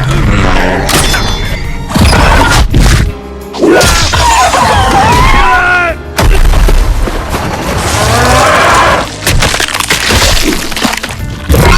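Action-film soundtrack mix: loud dramatic score with sudden crashes and breaking impacts cut in, and high gliding, wailing tones a few seconds in and again later.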